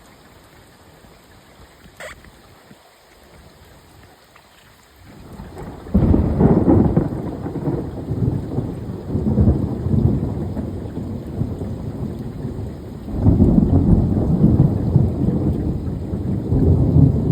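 A long roll of thunder. It is faint at first, builds from about five seconds in, breaks loud about a second later and keeps rumbling in several deep swells.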